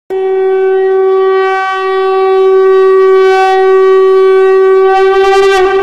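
Conch shell (shankh) blown in one long, steady note lasting nearly six seconds, wavering slightly near the end before cutting off suddenly.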